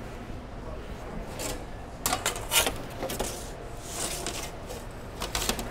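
Restaurant kitchen clatter: scattered light clicks and knocks of utensils and equipment being handled, over a steady low hum.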